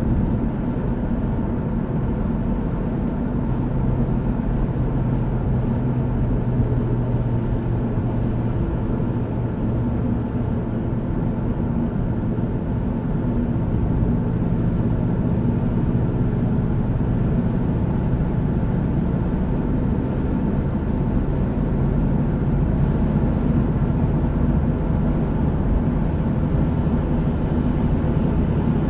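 Steady drone of a car's engine and tyres on the road, heard from inside the cabin while driving at a constant speed.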